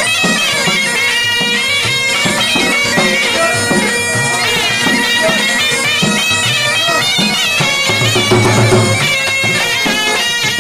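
Saraiki jhumar folk music: a reedy wind melody over a steady drone, with dhol drum beats underneath.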